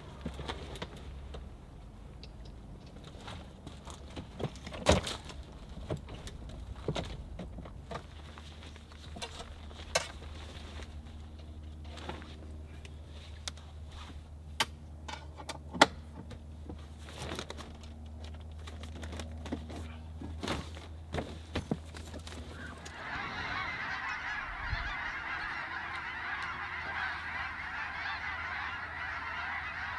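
Clicks and knocks as a hard-shell rooftop tent and its telescoping ladder are handled and opened. About three-quarters of the way in, a large flock of geese starts honking overhead, a dense chorus of many calls that carries on to the end.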